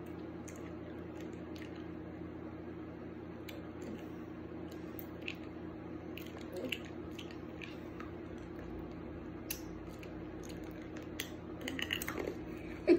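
Faint wet mouth clicks and chewing of sour candies being sucked and chewed, scattered over a steady low room hum.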